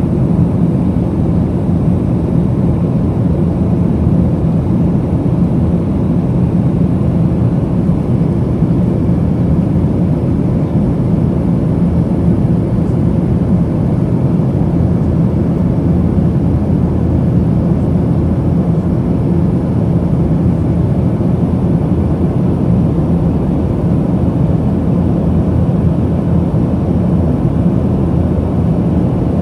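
Steady cabin noise inside a Boeing 737-900ER in flight: a low, even rush of airflow and CFM56-7B engine noise, heard from a seat over the right wing.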